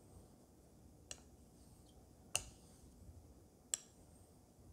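Hoshi Tombo 6000 kamisori straight razor being honed on a Japanese natural whetstone with a thin Tombo nagura slurry: faint, with three light clicks about a second and a half apart as the blade works the stone.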